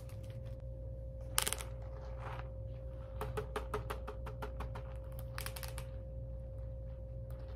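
Steady electrical hum over a low rumble, broken by scattered light clicks, with a quick run of about ten clicks a little over three seconds in.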